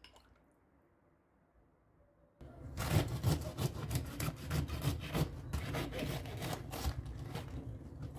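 Quiet for the first two seconds or so, then a small knife cutting into a raw head of white cabbage around its core: a dense run of rapid, crisp crunching strokes as the blade goes through the leaves.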